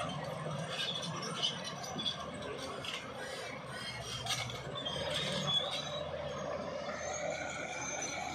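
Bulldozer working, its engine running steadily under metallic squealing, scraping and clinking from the machine's steel parts.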